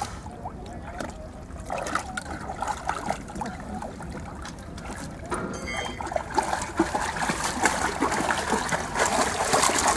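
Shallow water splashing and sloshing as a dog wades through it, getting louder and busier about halfway through.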